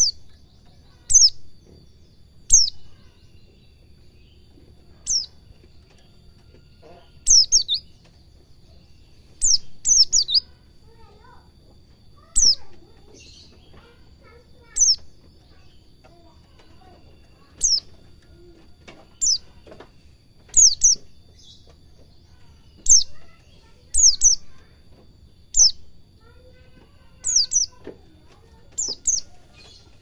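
White-eye (pleci) calling: short, sharp chirps that fall steeply in pitch, given singly or in quick pairs and once a triple, every second or two.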